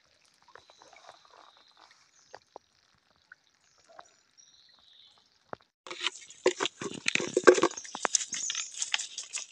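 Water dripping in small clicks and drops from a folding net fish trap lifted out of a stream. About six seconds in, this gives way abruptly to loud splashing and slapping of live fish thrashing in shallow water in a plastic bucket.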